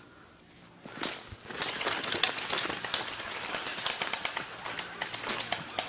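Dry leaves and twigs crunching and crackling underfoot in a fast, irregular run, starting about a second in.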